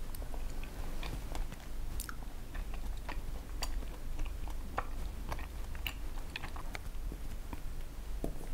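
Close-up chewing of chewy rice cakes (tteokbokki) with irregular small mouth clicks and smacks, over a steady low hum.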